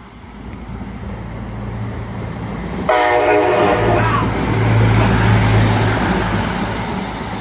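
A rail engineering inspection vehicle approaches and passes close by, its engine hum and wheel noise growing steadily louder. About three seconds in it sounds a short horn blast lasting about a second, its pitch falling just after.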